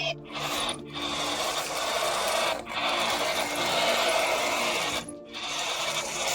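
Small electric motor and plastic gears of a battery-powered RC toy whirring, with short breaks about a second in, near the middle and about five seconds in.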